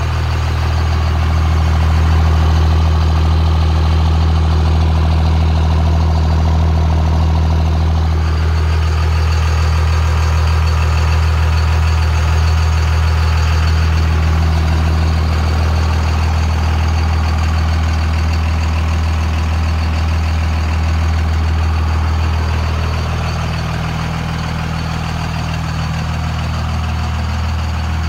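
A 5.9 L Cummins inline-six turbo diesel idling steadily through its Banks exhaust in a 1999 Dodge Ram 3500. The sound is a deep, even idle that grows a little quieter for the last few seconds.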